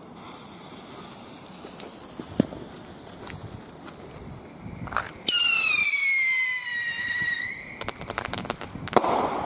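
A Funke caliber-B whistling rocket launching about five seconds in. It gives a loud whistle falling in pitch for about two seconds, followed by a run of sharp cracks and a bang near the end.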